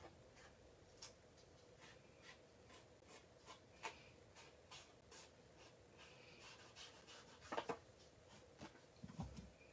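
Faint scratchy rustling as a sponge dabs and rubs loose gold leaf flakes onto the edge of a card and dips into a bowl of gold leaf, with a few sharper clicks and a soft low thump near the end, over a faint steady hum.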